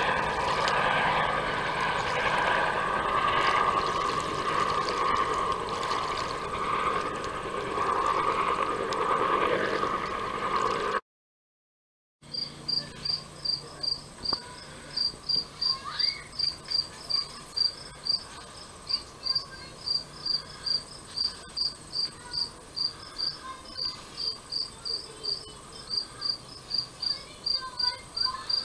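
A helicopter passing overhead, a steady rushing drone, cuts off abruptly about eleven seconds in. After a second of silence, a sharp high chirp repeats evenly about three times a second, typical of a cricket.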